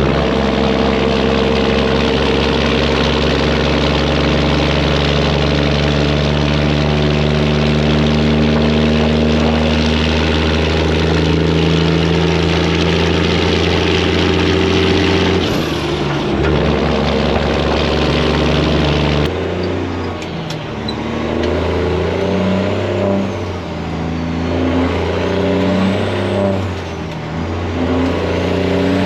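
Detroit Diesel engine of a semi-truck running under load through loud exhaust pipes, a steady deep drone. About 19 seconds in the sound changes abruptly: the engine's pitch steps up and down, with a faint high turbo whistle rising and falling.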